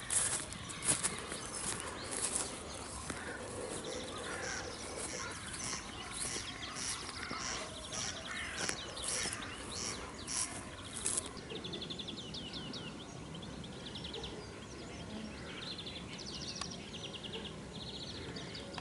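Several birds singing and calling together: many short, sharp chirps through the first half, then repeated rapid trills in the second half.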